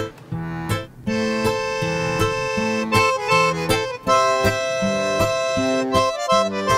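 Instrumental background music: a rhythmic plucked bass line, joined about a second in by a held melody.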